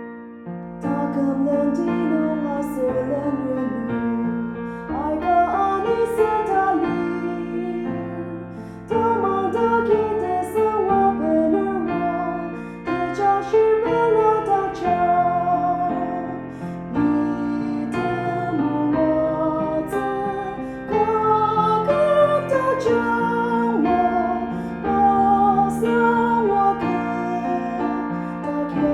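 Slow worship music played on a keyboard, sustained piano-like chords and a melody moving through the changes.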